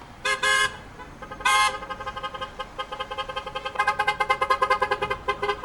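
Car horns honking: two quick blasts, then one longer blast, then a fast stuttering run of short toots that grows louder about four seconds in.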